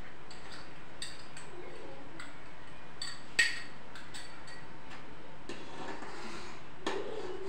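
Metal ladle clinking against the side of a metal pot while stirring thickened soup: a few light clinks, with one sharper ringing strike about three and a half seconds in, over a steady background hiss.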